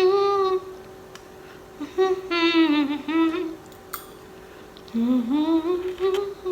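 A woman humming a tune without words in three short melodic phrases, about two seconds apart.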